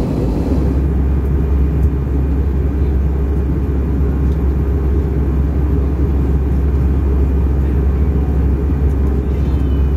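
Airbus A321 cabin noise during descent: a steady low rumble of airflow and the engines, heard inside the cabin from a window seat beside the wing and engine.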